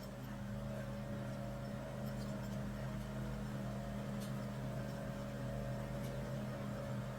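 A motor running with a steady, unchanging hum, and a couple of faint ticks over it.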